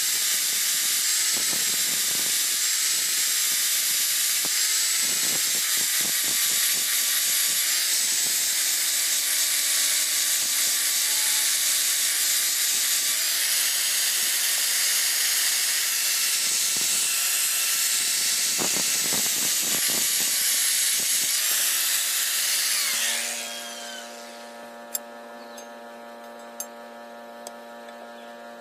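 Angle grinder with an abrasive disc grinding a steel knife blade: a loud, steady hiss over the motor's whine. About 23 seconds in it is switched off and its pitch falls as it winds down, leaving a low steady hum and a few light clicks.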